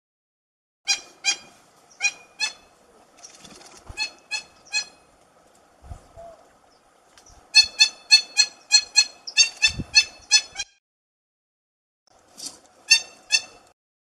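Grey-breasted mountain toucans calling: loud, nasal, honking notes in pairs and threes, then a fast run of about a dozen notes in the middle, with three more near the end.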